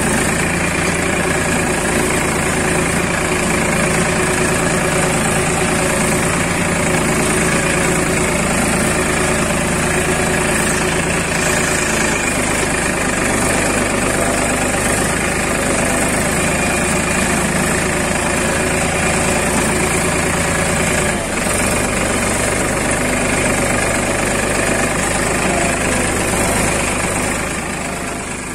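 Escorts tractor's diesel engine running steadily under load while pulling a disc plough through the soil. The sound fades away near the end.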